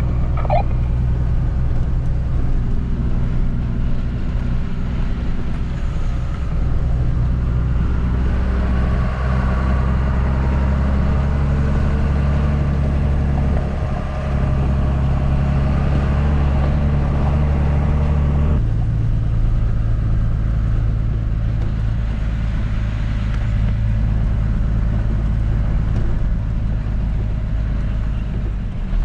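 Large engine running at a steady speed, with a low, even hum. The pitch drops abruptly about two-thirds of the way through.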